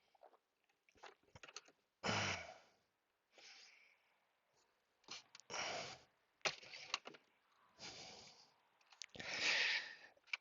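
Several soft, sighing breaths and scattered small clicks as a screwdriver pries at the plastic clip holding a shifter cable.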